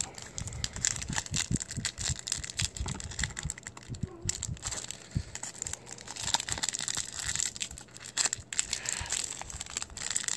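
Foil wrapper of a trading-card booster pack crinkling and tearing as hands twist and pull it open, a dense, uneven crackle. The pack is hard to open.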